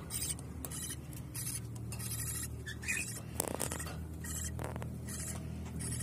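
Budgerigar chicks in a wooden nest box making short, raspy, hissy calls over and over, about one or two a second, with two fuller, louder calls around the middle. A steady low hum runs underneath.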